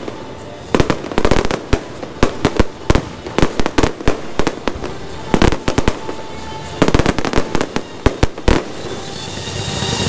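Aerial fireworks bursting in irregular clusters of sharp bangs, with short gaps between the volleys, under music.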